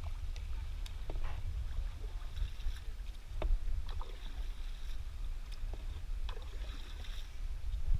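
Double-bladed paddle dipping into calm sea water from a plastic sit-on-top tandem kayak, with light splashes and drips and a few faint knocks, over a low rumble.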